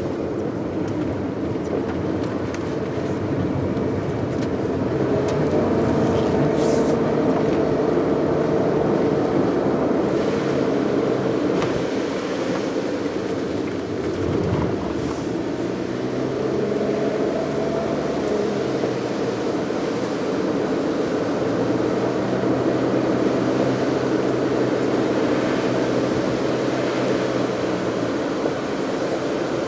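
A car driving along: steady engine and road noise, with the engine's pitch changing about halfway through as it comes off and back on the throttle.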